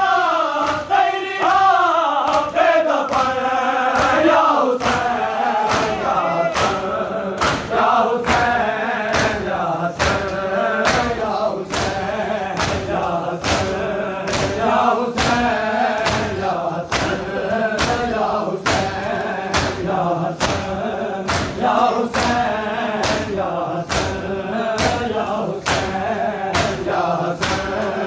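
A crowd of men chanting a mourning lament in unison, with hands slapping on bare chests in time (matam), sharp strikes at roughly two a second.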